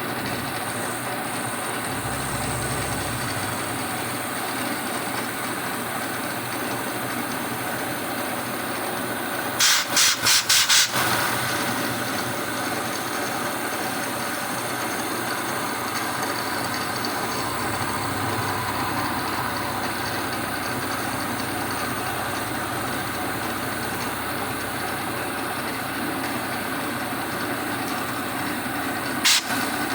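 A 1980 Shizuoka AN-S CNC milling machine milling a slot in 1018 carbon steel, its spindle and cutter running with a steady mechanical noise. About ten seconds in come five sharp clicks in quick succession, and one more near the end.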